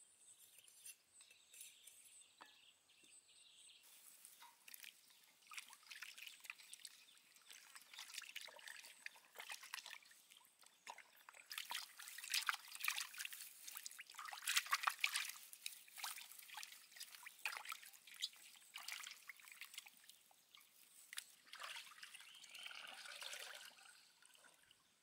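Water splashing, sloshing and dripping as hands rub and rinse a plucked Muscovy duck carcass in a metal basin, loudest about halfway through.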